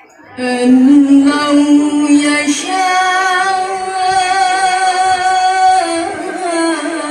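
A woman's voice in melodic Qur'an recitation (tilawah) into a microphone: one long drawn-out phrase starting about half a second in, with long held notes and slow ornamental pitch turns, shifting pitch about six seconds in.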